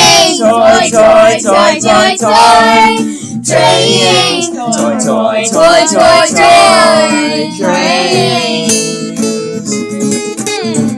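Music: a voice singing a wavering melody over a guitar-led backing with steady sustained chords.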